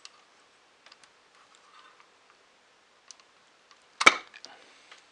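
Computer parts being handled: a few faint clicks, then a sharp knock about four seconds in, followed by a short rattle.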